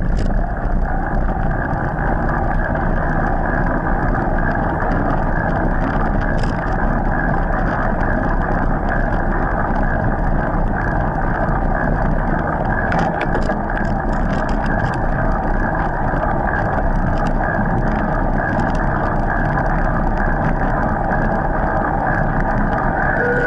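Steady rushing wind and tyre noise on the microphone of a camera mounted on an e-mountain bike riding up a paved road, with scattered light clicks and rattles in the middle stretch.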